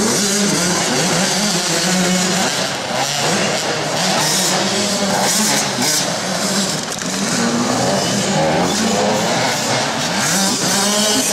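Off-road racing engine running hard through a lap, its pitch rising and falling again and again with throttle and gear changes.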